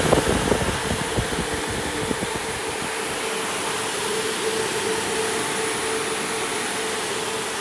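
GMCAIR heat recovery ventilator's centrifugal fans running steadily on the third speed setting: an even rush of air with a steady hum. A few light knocks come in the first second or two.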